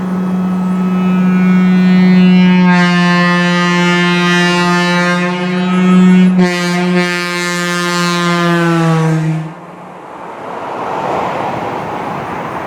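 Train air horns blowing: a single low horn tone sounds first and is joined about three seconds in by a many-toned multi-chime chord. Both stumble briefly about six seconds in, sag slightly in pitch, and cut off about nine and a half seconds in, leaving a steady rushing noise.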